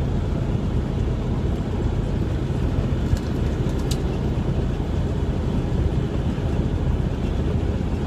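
Steady low drone of a semi-truck's diesel engine and road noise heard inside the cab while driving, with two faint ticks about three and four seconds in.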